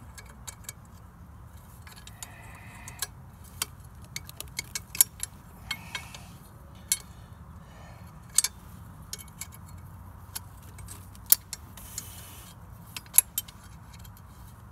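Irregular metal clicks and clinks of a hand wrench turning the bolts that fasten a Flint & Walling pump to its motor, with a few sharper clicks standing out and some brief scraping.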